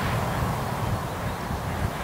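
Continuous motorway traffic noise: a steady hum of tyres and engines from Autobahn traffic, with no single vehicle standing out.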